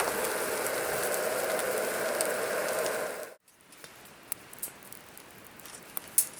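A steady crackling hiss that cuts off abruptly a bit over three seconds in. Much quieter scattered ticks follow.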